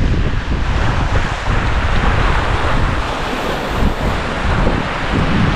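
Waves breaking and washing on a rocky lakeshore in a strong wind, with gusts buffeting the microphone as an uneven low rumble under a steady wash of water noise.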